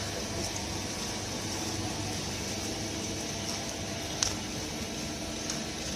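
Steady background hum and hiss, with one faint click about four seconds in.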